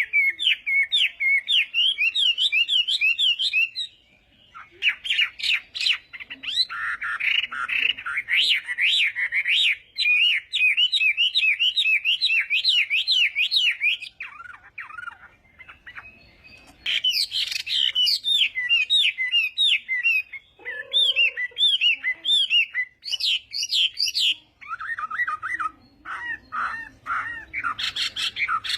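Chinese hwamei (melodious laughingthrush) singing: long phrases of fast, repeated rising-and-falling whistled notes, with short breaks between phrases.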